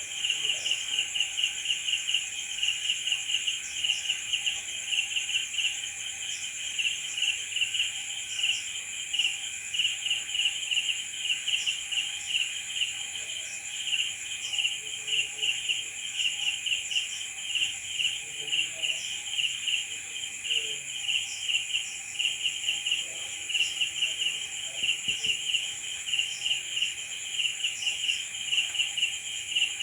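Crickets chirping in a dense chorus: pulsing chirps a few times a second over a steady, high-pitched trill.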